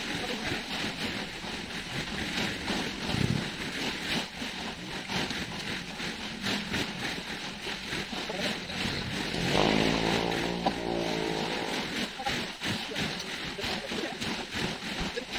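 Shoreline ambience: a steady rush of small waves and wind, with crackling. About ten seconds in, a motor drones steadily for roughly two seconds.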